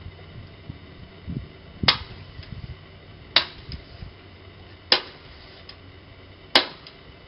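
Four handgun shots fired one at a time, about a second and a half apart, each a sharp crack with a short ringing tail.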